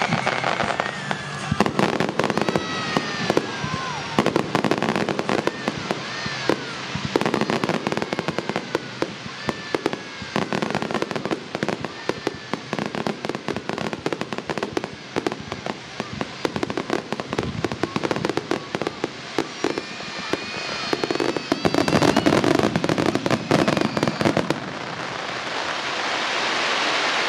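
Japanese star mine fireworks firing in rapid succession: dense bangs and crackling, with whistles sliding down in pitch. It builds to a thick, loud volley near the end, then the bangs stop and a steady hiss remains.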